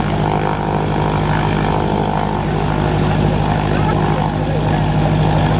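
Cessna 172M Skyhawk's four-cylinder Lycoming piston engine and propeller running steadily at low taxi power as the light plane rolls past.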